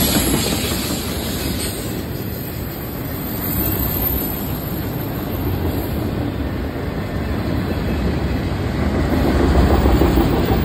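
A freight train's autorack cars rolling past at close range: a steady rumble of steel wheels on rail, getting louder near the end.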